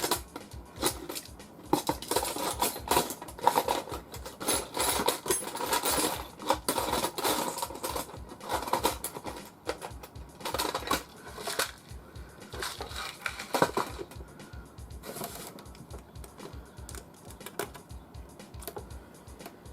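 Irregular clicking and clattering of small hard parts being handled while fitting hardware into a computer case, with rapid runs of clicks and knocks that thin out in the last few seconds.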